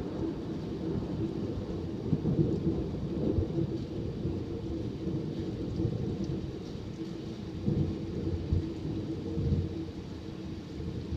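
Thunder rumbling in long rolls that swell and fade, with rain falling steadily underneath.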